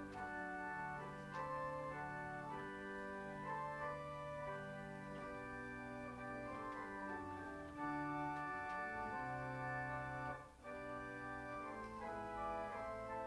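Church organ playing slow, sustained chords that change about once a second, with a brief break between phrases about ten seconds in.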